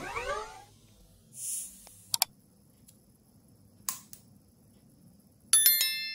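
Mouse-click sound effects of a like-and-subscribe overlay: a quick double click about two seconds in and a single click near four seconds, then a bright notification bell chime of several clear tones near the end, the loudest sound here.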